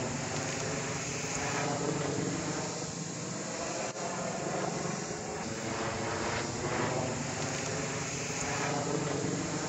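Aircraft flying overhead at a distance: a steady engine drone with a slowly shifting sweep in its tone.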